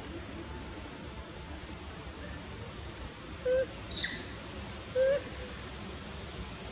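Forest insects giving a steady, high-pitched drone, with two short calls about three and a half and five seconds in and a sharp high chirp at about four seconds, the loudest sound.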